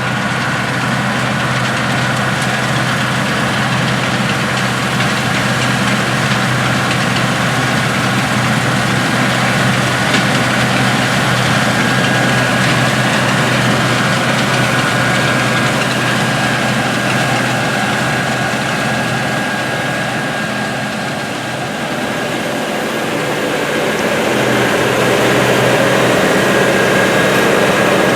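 Heavy diesel harvest machinery running steadily, with a steady high whine over the engine hum. The sound dips briefly about two-thirds of the way through, then grows louder.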